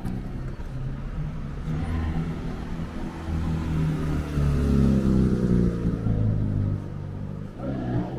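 A car's engine running as it drives past on the street alongside, swelling to its loudest about halfway through with a sweeping change in pitch, then easing off.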